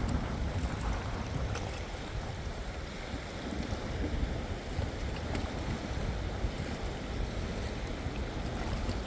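Strong wind blowing over the microphone in a steady low rush, with waves washing beneath it.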